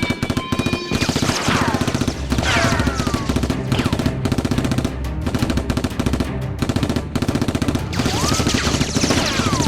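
Rapid automatic gunfire sound effects, many shots a second, with falling whizzing tones like passing rounds, over background music.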